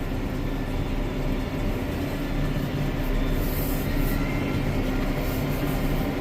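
Tractor engine running steadily while pulling a round baler through the field: an even drone with a steady low hum.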